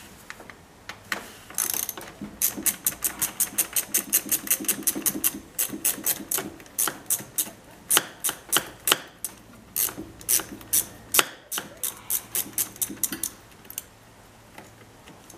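Socket ratchet clicking in quick runs of about five clicks a second, then in more irregular strokes with a few louder single clicks, as a fastener on the air intake pipe is worked loose.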